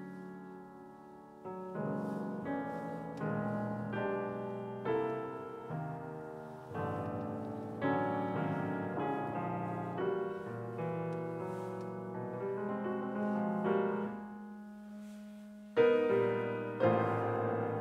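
A grand piano played solo: chords and notes struck in steady succession, each ringing and fading, with a quieter stretch before a loud chord near the end.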